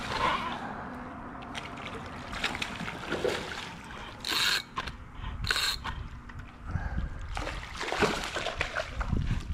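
Fishing reel being wound in while a hooked snook is fought, with many small mechanical ticks and two short bright bursts about a second apart near the middle, and some water splashing.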